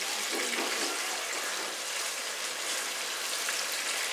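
Chicken pieces sizzling steadily in hot oil in a pot as they are stirred, with a fine crackle throughout.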